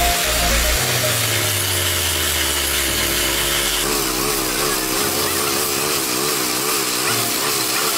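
Abrasive grinders working on a steel rail, a loud continuous grinding whose pitch wavers up and down as the rail weld is ground down.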